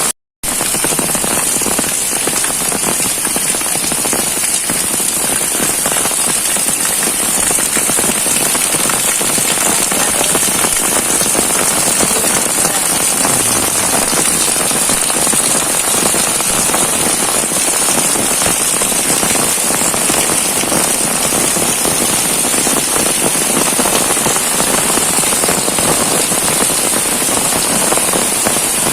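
Heavy rain pouring steadily, a dense hiss of drops. The sound cuts out for a split second right at the start.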